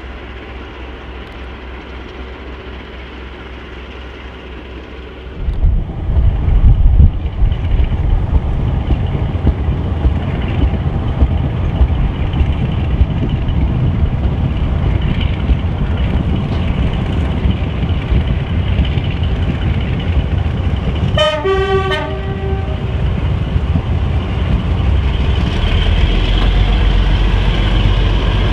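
A steady low hum for the first few seconds, then the louder running noise of a train heard from a carriage window behind the Class 42 Warship diesel-hydraulic D821, its Maybach MD650 engines working. About three-quarters of the way through, the locomotive gives one short two-note horn blast.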